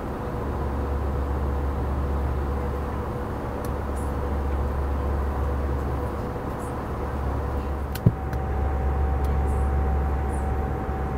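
Steady cabin drone of an Airbus A319 airliner cruising at altitude: a deep, even rumble of engine and airflow noise with a faint steady hum over it. About eight seconds in there is a single sharp click.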